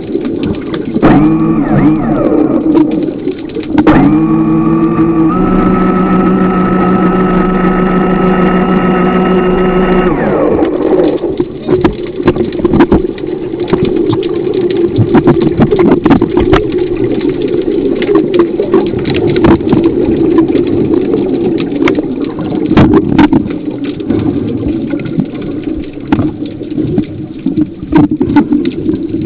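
Underwater diving scooter's electric motor running with a steady whine, its pitch shifting in the first few seconds, then winding down and stopping about ten seconds in. After that, crackling, bubbling underwater noise from divers' exhaled bubbles.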